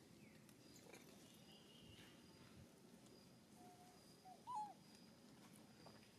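Mostly near silence, broken by a short high call from a baby macaque about four and a half seconds in, rising then falling in pitch, with a fainter short call just before it.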